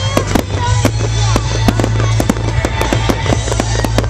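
Fireworks display: a dense, continuous run of rapid sharp bangs and crackles from bursting aerial shells and a crackling ground fountain, over a steady low rumble.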